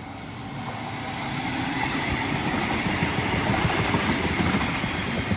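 A CAF Urbos 3 light rail tram running along the track at the stop, its wheels rumbling and rattling, loudest about two seconds in and easing afterwards. A sharp hiss starts right at the beginning and cuts off suddenly about two seconds in.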